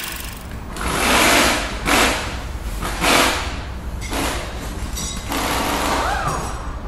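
Sound effects of an animated logo sequence: a series of whooshes over a steady low rumble.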